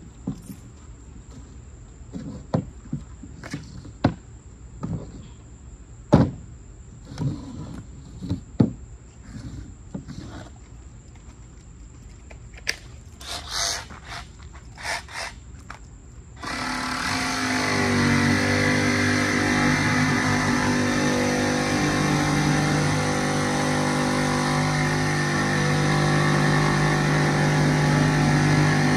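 Scattered knocks and clatter of handling tools and plywood, then, a little past halfway, a machine starts abruptly, settles a little lower in pitch within a second or two, and runs on steadily and loudly.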